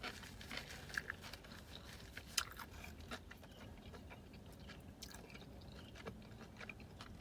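A person chewing food close to the microphone: quiet, wet mouth sounds with a few faint crunches.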